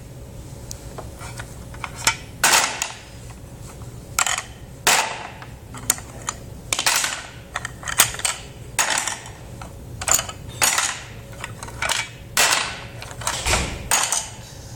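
Toy cookware and play food clacking and knocking as they are handled: many short, sharp clacks at an irregular pace, over a steady low hum.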